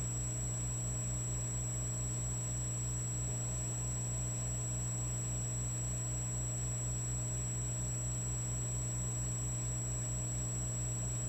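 Electric fireplace log set running with a steady electrical hum and buzz, over a thin high whine and a fast, even low pulsing of about six beats a second.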